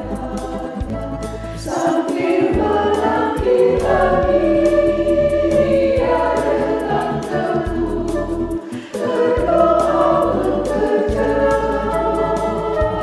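Women's choir singing a hymn in Indonesian over instrumental backing with a bass line and a steady beat.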